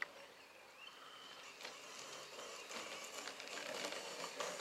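Turnigy SCT 2WD 1/10-scale brushless short course RC truck driving over grass, a faint rustling, crackling rattle of tyres and drivetrain that grows louder from about two seconds in as the truck comes close.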